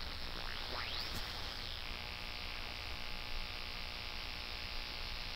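Static from a shortwave software-defined receiver tuned to single sideband on the 40-meter band, as a pure-sine power inverter is switched on. Faint whistles glide up and back down in the first two seconds, then the hiss turns into a steady buzz of many even tones. The buzz is radio-frequency interference from the inverter.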